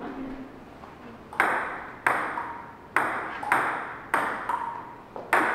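Table tennis ball clicking against paddles and the table in a rally, about a click every half second starting a second and a half in, each one echoing briefly in a large hard-walled room.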